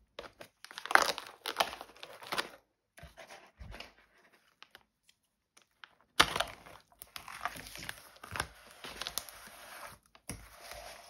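Corrugated cardboard mailer box being ripped open by hand, with tearing and crinkling in bursts, a quiet pause of a few seconds in the middle, then more ripping.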